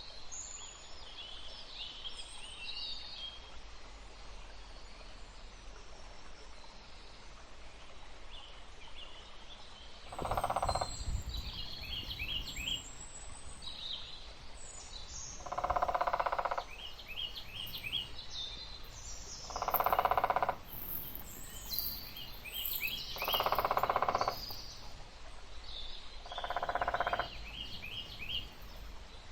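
Forest ambience soundscape: small birds chirping and twittering throughout. A louder, lower animal call about a second long comes five times, roughly every four seconds, starting about a third of the way in.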